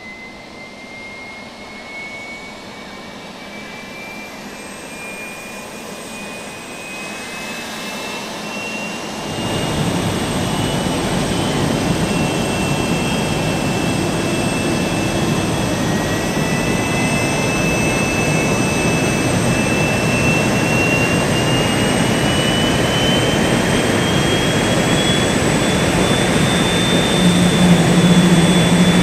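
Jet turbine engine spooling up: a whine climbing slowly in pitch, joined about nine seconds in by a loud, steady rush of exhaust noise that keeps building.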